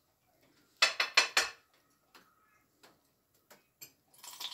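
Metal cookware clinking: three quick sharp knocks of utensil against a wok about a second in, then a few faint ticks. A steady rush of noise starts near the end.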